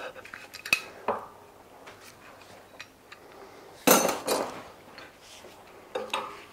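Large adjustable wrench clinking and clanking against a steel nut and the engine casting as it is repositioned and turned to run off a nut that has just broken free. A few separate metallic knocks, the loudest about four seconds in and another about six seconds in.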